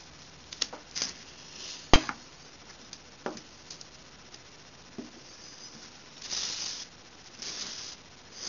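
Small weights being knocked and set down on a wooden bench while a solar cell is handled: a few light clicks and one sharp knock about two seconds in. In the second half come two brushing, scraping sounds as the cell is slid across the plywood.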